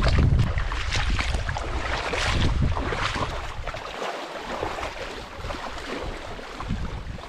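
Wind buffeting the microphone, its heavy rumble easing about four seconds in, over irregular water splashing in the shallows at a lake's edge as people wade through it.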